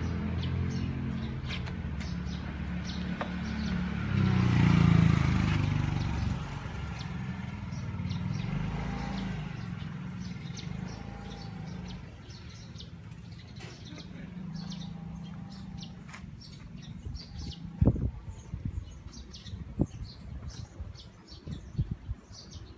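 A motor vehicle's engine running, loudest about five seconds in and fading out by about twelve seconds. Then small birds chirp repeatedly, with a few sharp knocks.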